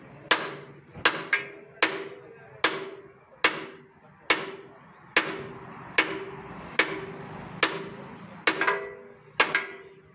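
Hammer blows on the steel of a tractor plough, struck steadily a little more than once a second. Each blow leaves a short metallic ring; the plough is being hammered back into shape after being bent.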